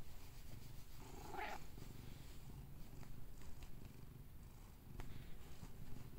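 Domestic ginger tabby cat purring steadily while being stroked, a contented purr, with one short meow about a second in.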